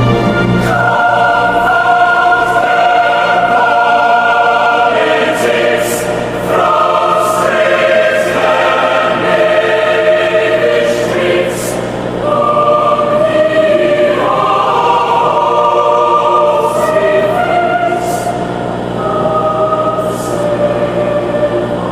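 Choir singing slowly in long held chords that change every few seconds, with the soft hiss of sung consonants now and then.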